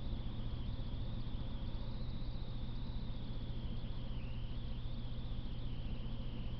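Steady low hum under an even hiss, with a thin high whine that wavers and slowly sinks in pitch; no train is passing.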